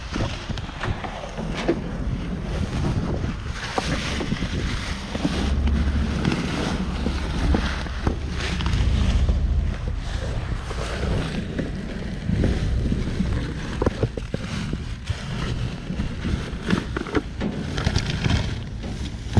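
Plastic garbage bags rustling and crinkling as they are pushed and pulled about inside a dumpster, with wind buffeting the microphone, gusting hardest about a third of the way in.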